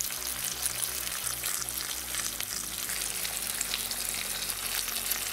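Breaded perch fillets and roe frying in plenty of hot vegetable oil in a pan: a steady sizzle of fine crackles.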